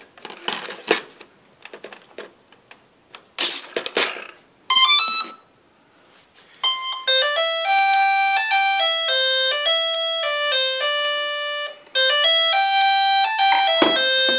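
Clicks and rustles of handling, then a short electronic beep and, from about seven seconds in, a tune of clear electronic beeping notes that steps from pitch to pitch, with a brief break near the end.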